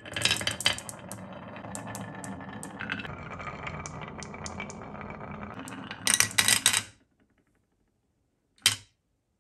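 Glass marbles rolling down a wavy wooden marble track, a steady rumble with scattered clicks as they knock against each other. About six seconds in comes a quick burst of loud clacks as they drop into a plastic toy dump truck's tipper bin, and there is one more sharp click near the end.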